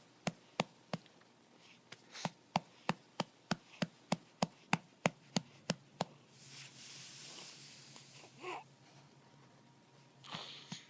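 A hand patting a baby's back to bring up a burp: quick, even pats about three a second, stopping about halfway through for a soft hiss.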